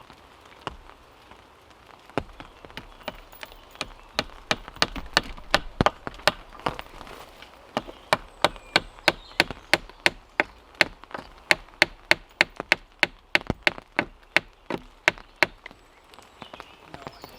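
Wooden dowel pegs being hammered into a wooden sawhorse: a long run of sharp wooden knocks, sparse in the first few seconds and then steady at about two or three blows a second.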